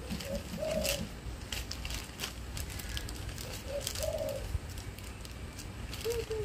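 A dove cooing three times, each phrase a short note followed by a longer arched one, about every three seconds, the last sliding down at the end. Light crinkling of a plastic bag being handled is heard between the coos.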